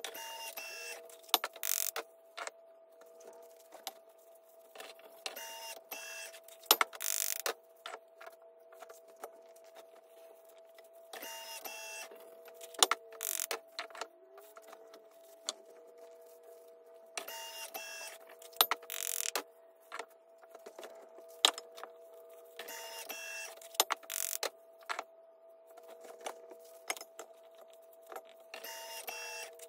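Electric bath bomb press whirring in short bursts of about a second, roughly every five or six seconds, with sharp clicks and knocks of the metal mould between, over a steady faint hum.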